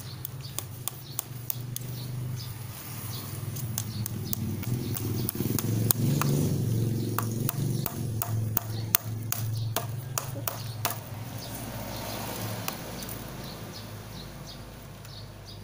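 Hammer driving nails into a dried coconut-stalk and wood decoration: a run of quick metal-on-nail strikes, about three a second, ending about eleven seconds in, over a steady low hum.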